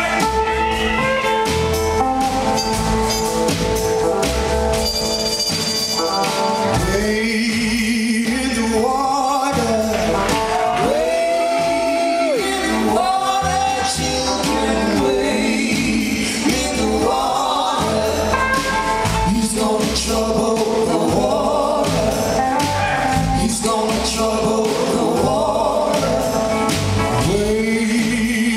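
Live band playing a gospel-blues spiritual with drums and a horn section. The horns hold long chords at first, then singing with a wide vibrato comes in about seven seconds in and carries on over the band.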